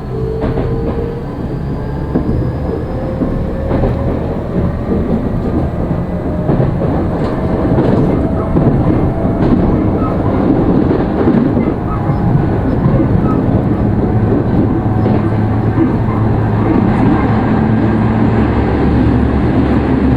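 Tokyu 5000 series electric train with a Hitachi VVVF inverter accelerating. The inverter whine rises slowly in pitch over the first few seconds. The running noise of motors and wheels then grows louder and holds steady.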